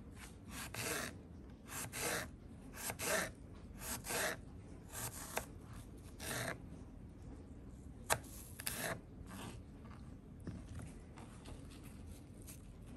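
Kitchen knife slicing a quartered apple into thin slices on a plastic chopping board: a run of short, crisp cuts, one or two a second, that stops after about nine seconds. One sharper click comes about eight seconds in.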